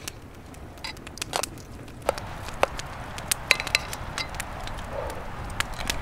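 Campfire crackling, with irregular sharp pops and snaps over a low steady rumble.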